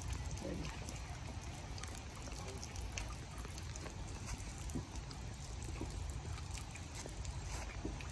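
Faint, steady trickling water over a low rumble, with light scattered ticks.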